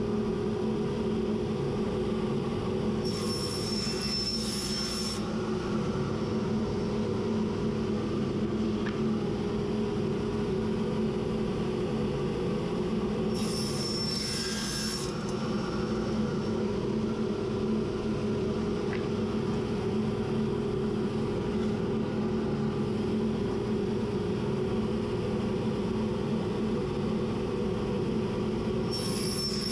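Woodworking jointer running with a steady motor hum while pine boards are fed over its cutter head. Three short planing passes, at about 3 s, about 13 s and near the end, each add a brief high hiss with a thin whine.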